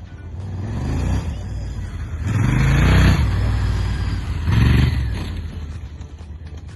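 Honda XL1000V Varadero's V-twin engine under throttle, its revs rising and falling three times: about a second in, around three seconds, and just under five seconds.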